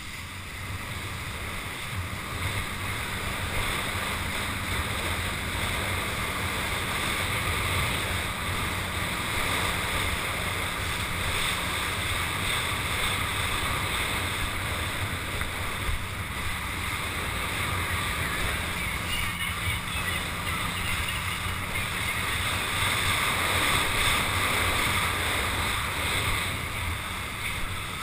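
Steady rush of wind buffeting the microphone and water hissing and spraying off a water ski while being towed at speed behind a ski boat, with a low rumble throughout.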